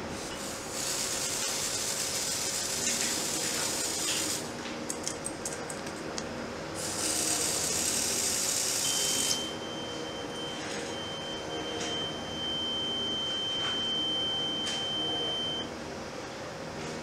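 Smoke detector test spray hissing from an aerosol can in two bursts of a few seconds each, with a run of light clicks between them. Then the Graviner Mk 6 oil mist detector's alarm sounds a single steady high tone for about six seconds and cuts off, the sign that the detector head has sensed the simulated oil mist.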